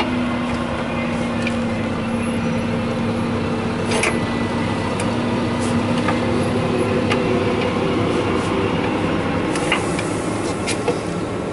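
A steady mechanical hum and drone, with a few faint sharp clicks.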